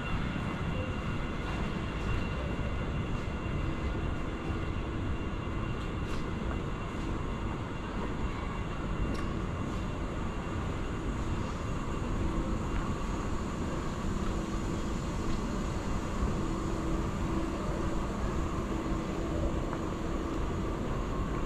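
Steady city street ambience: a continuous low rumble with a few faint steady tones above it.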